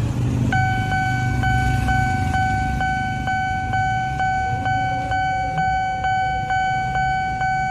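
Railway level-crossing warning bell starting about half a second in: a steady ringing tone that pulses about twice a second, signalling an approaching train while the crossing barrier comes down.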